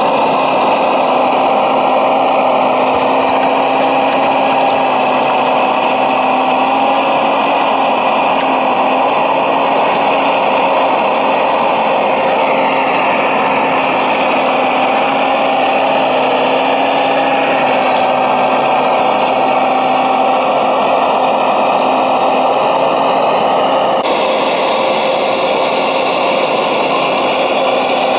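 Radio-controlled Liebherr R970 SME model excavator running: a steady mechanical whine with several held tones that waver slightly as the machine moves. The tone shifts about three-quarters of the way through.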